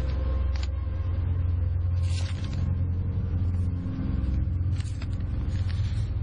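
A steady low rumbling drone, dipping briefly about four seconds in.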